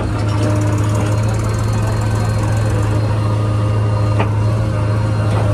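Heavy diesel engine running steadily with a strong low hum, with one short knock about four seconds in.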